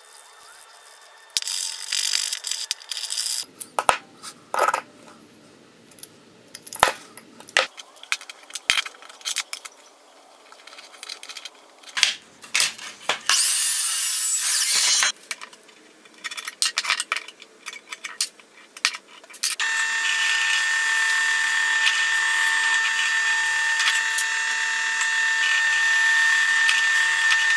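Small metal parts clinking as they are handled, then a miter saw cutting through a hardwood block for about two seconds. A drill press motor then runs steadily with a high whine as the bit bores into the wood.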